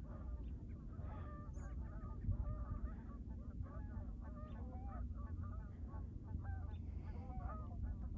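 A flock of geese honking: many short, overlapping calls over a low steady rumble.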